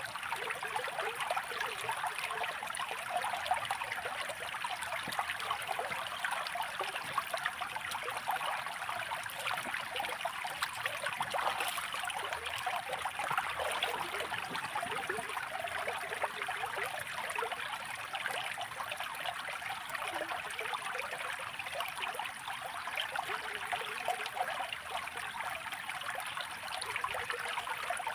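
A small stream running steadily, a busy trickling and splashing that is high and light, with almost no low rumble.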